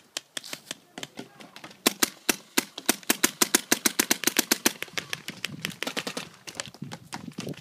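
Paintball marker firing a rapid string of shots, about seven a second, for about three seconds starting about two seconds in, with scattered fainter shots around it.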